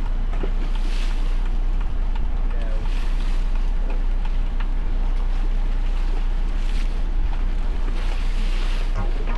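Small boat on the water: a steady low rumble with water and wind noise, and wind buffeting the microphone.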